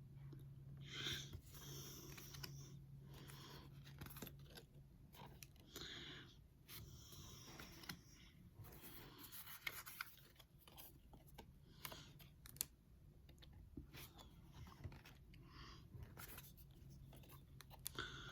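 Faint rustling and crinkling from Pokémon trading cards and their foil booster-pack wrapper being handled, in short scratchy spells with small clicks between them.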